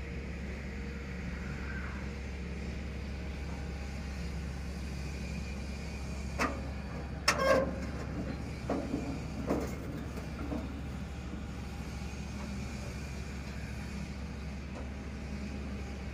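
Dongfeng 8 PK single-cylinder diesel engine of a concrete mixer running steadily with a low rumble. A few sharp metallic clanks come between about six and ten seconds in.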